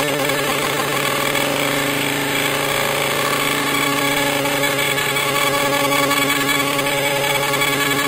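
Animoog synthesizer app on an iPad sounding a sustained droning note made of many steady tones. A warble in its pitch settles into an even tone within the first second.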